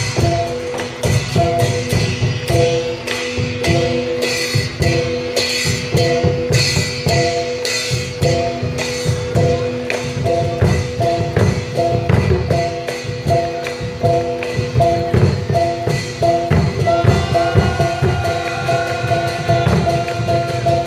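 Live traditional Northern Thai drum music: a quick, steady beat of drums and metal percussion strikes over repeated ringing tones. A higher melody line joins about three-quarters of the way through.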